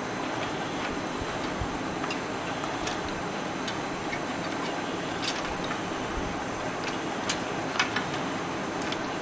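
Scattered light clicks and taps of cables and plastic connectors against the metal computer case as wiring is routed inside it, a few close together near the end, over a steady background hiss.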